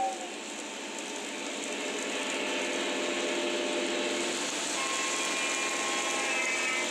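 O scale three-rail electric model trains running: a steady whir of motors and wheels rolling on the track. Faint steady tones join about two-thirds of the way through.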